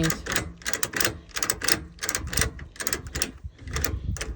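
Boat trailer ratchet strap being cranked tight: a quick, steady run of sharp ratchet clicks, about four a second.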